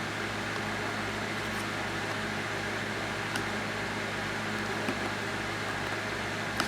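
Steady fan-like background hum and hiss, with a few faint clicks.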